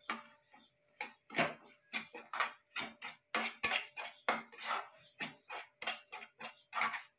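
Steel spoon scraping and stirring ground broken wheat (lapsi) roasting in ghee in a non-stick kadhai, in repeated strokes about two a second, quieter in the first second.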